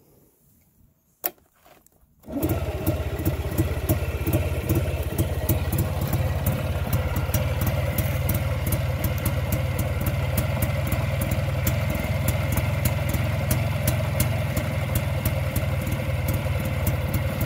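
Zündapp Bella 204 scooter's single-cylinder two-stroke engine: a single click about a second in, then the engine starts a little after two seconds and idles steadily with a fast, even ticking.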